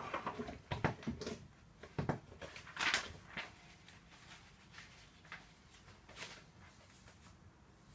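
Light knocks and clatters of tools or parts being handled on a workbench, thickest in the first three and a half seconds, with a short louder rustle about three seconds in, then only a few faint clicks.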